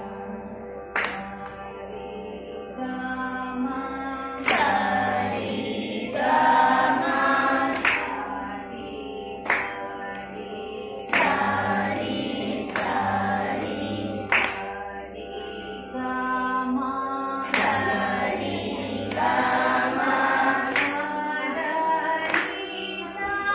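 A class of children singing a Carnatic song together in unison over a steady drone. A hand clap marks the beat about every one and a half seconds.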